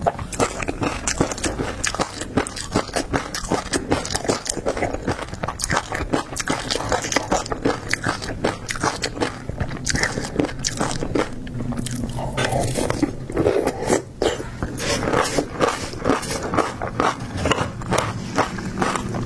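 Close-miked eating of seafood: continuous biting and wet chewing, with rapid crisp clicks and crunches.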